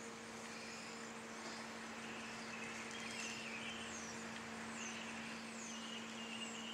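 Faint bird chirps, a high falling note repeated about every second, over a steady electrical hum and background hiss.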